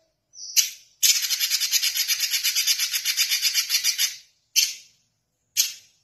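Red-billed leiothrix (Pekin robin) singing: a short call, then a rapid high trill lasting about three seconds, then two brief notes about a second apart.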